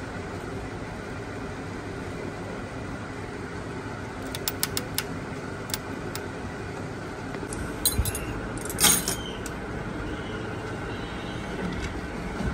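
Steady background hum with a run of light metallic clicks about four seconds in, and a brief, louder metal clatter near the nine-second mark: tools and engine parts being handled while the engine is taken apart.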